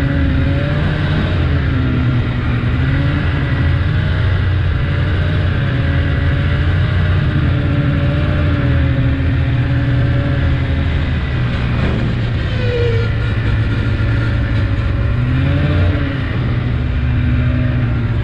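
Snowmobile engine running at trail-riding speed, its pitch wavering up and down gently as the throttle shifts.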